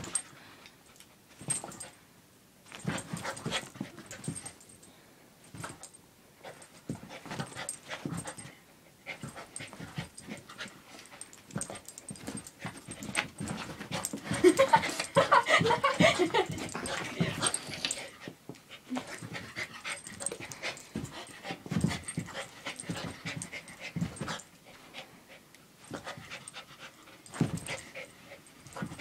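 Small dog chasing a laser-pointer dot, panting, its paws scrabbling and thumping on the carpet and rug in short irregular bursts. A louder, busier stretch of sound comes about halfway through.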